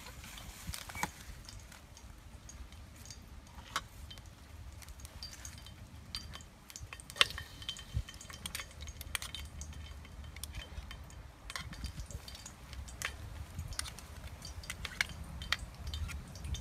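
Metal spoon and ladle clinking and scraping against a plate and a stainless steel pot in scattered light clicks, with one sharper clink about seven seconds in, over a low rumble.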